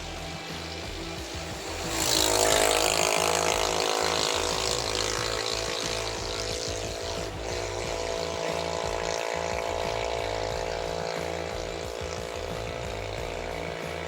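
Ford Ranger 2.2 diesel engine idling steadily just after a fuel filter change. It keeps running without stalling, a sign that the new filter was primed properly. It gets louder about two seconds in.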